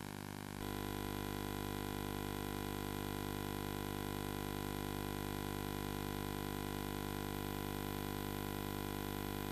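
Steady electrical mains hum with many overtones under a constant hiss, the background noise of an old videotape recording. It steps up slightly in level about half a second in and then holds steady.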